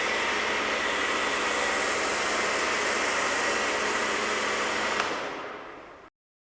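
Kärcher K2 electric pressure washer running steadily, its motor whine under the hiss of water and snow foam spraying from an MJJC foam lance. A sharp click about five seconds in, then the sound fades away and stops.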